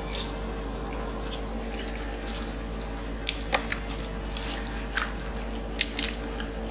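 Close-miked chewing and biting of sauced fried chicken dipped in cheese sauce: wet mouth smacks and small crunches come irregularly over a steady low hum.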